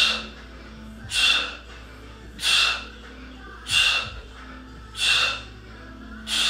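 A man breathing hard from exertion during bicycle crunches: six sharp, evenly spaced breaths, about one every 1.3 seconds, in time with the twists.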